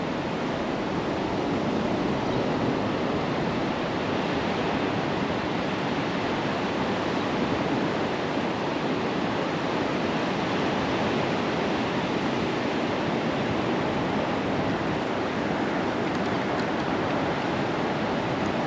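Ocean surf breaking and washing onto the beach, a steady, unbroken rush of noise.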